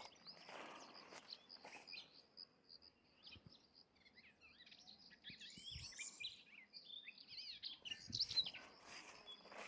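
Small wild birds chirping and twittering, faintly, with a thick cluster of quick calls in the middle. Footsteps on the ground rustle and crunch near the start and again near the end.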